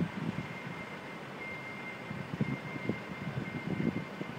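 Steady drone of construction noise from an office building across the street, with a faint thin high tone that comes and goes, and irregular low buffeting of wind on the microphone.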